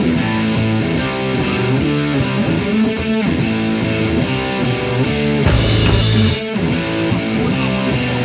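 Background music with guitar, playing steadily.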